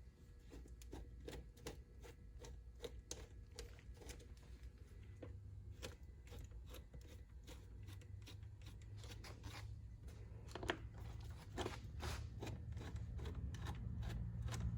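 Irregular light clicks, taps and rattles of hand tools and engine-bay parts being handled as the air intake is taken off, over a steady low hum.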